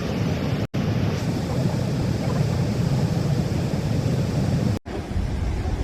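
Steady rushing of a large monsoon-fed waterfall, Athirappilly Falls, heavy in the low end, with wind on the microphone. The sound cuts out abruptly twice for a split second, about a second in and near the end.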